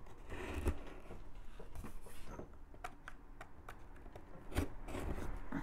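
A small blade cutting the packing tape on a cardboard shipping box, with irregular light ticks, scratches and taps on the cardboard.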